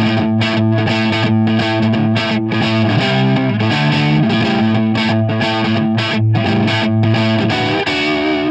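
Heavily distorted electric guitar, a Fender Stratocaster through a loud Hughes & Kettner TubeMeister tube amp into a Marshall cabinet, picked up close by a Shure SM57 dynamic microphone. Strummed, ringing chords, changing about three seconds in.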